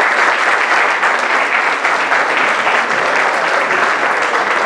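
Audience applauding: many hands clapping together at an even level.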